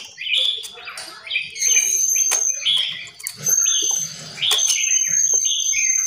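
Several caged songbirds chirping and calling, with many short repeated calls overlapping. A thin, steady high whistle-like tone comes in about a second and a half in and holds, breaking off briefly now and then.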